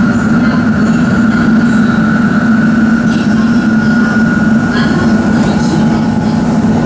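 Shinkansen bullet train running, a steady loud rushing noise with a constant low hum and a fainter higher whine.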